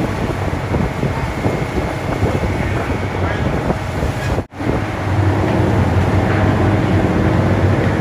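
Passenger ferry's engine droning steadily, a low hum under a rushing noise, with a momentary break about halfway through.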